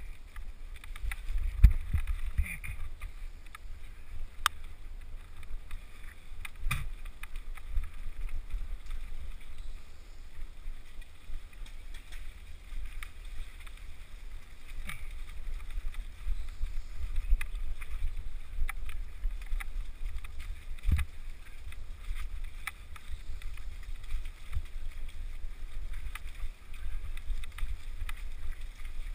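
Riding a bicycle down a rough dirt trail, heard from a helmet-mounted action camera: a steady low rumble of wind and jolting, with scattered clicks and knocks from bumps.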